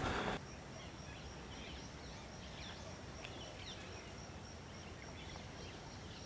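Woodland birds chirping faintly, with short scattered calls throughout, over a steady high thin whine. A brief louder noise cuts off in the first half second.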